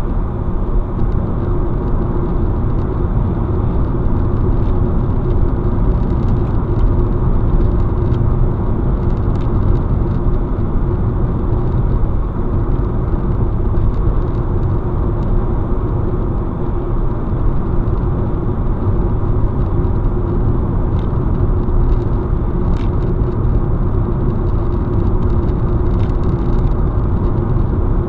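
Steady road noise inside a car cruising at highway speed: tyre rumble on asphalt with a constant low hum from the engine and drivetrain.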